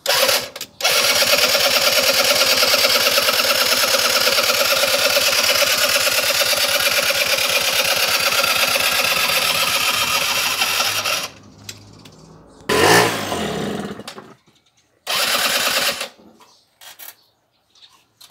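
A small scooter engine being started with its electric starter, turning over in one long burst of about ten seconds. Two short bursts follow near the end.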